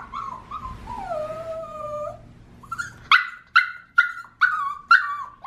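Small white puppy crying in its wire crate: high thin whining with a falling whine, then from about three seconds in a run of about six sharp yelps, each trailing off into a whine.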